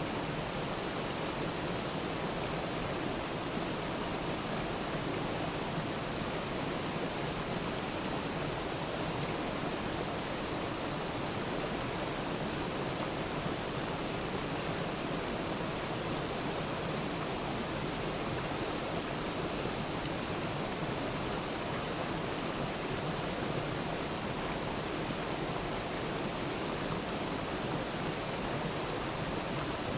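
Waterfall: water pouring and splashing in a steady, even rush without a break.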